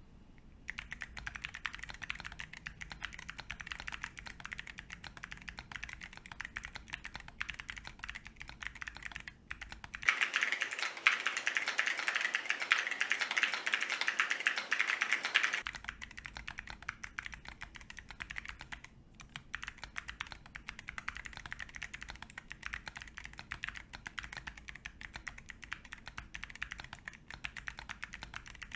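Continuous typing on a Monsgeek M7W mechanical keyboard with 40 g Zeal Clickiez switches in click mode and MDA-profile keycaps, set on a desk mat: a dense run of sharp keystroke clicks. From about ten seconds in, for five or six seconds, the typing sounds louder and brighter, picked up by the camera's own microphone, then returns to the separate mic.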